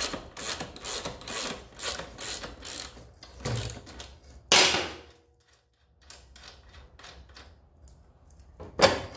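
Socket ratchet clicking in short, even back-strokes, about two a second, as a motorcycle's rear axle nut is loosened. About four and a half seconds in comes a louder metal knock, then faint light ticks, and a sharp clank near the end.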